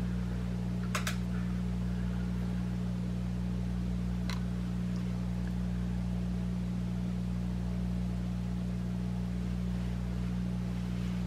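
A steady low hum, with two short faint clicks about one second and four seconds in.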